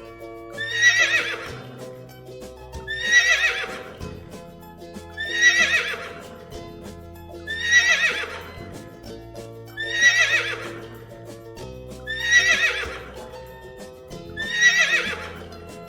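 A horse neighing: the same whinny repeats seven times, about every two and a half seconds, each call falling in pitch. Background music with held notes plays underneath.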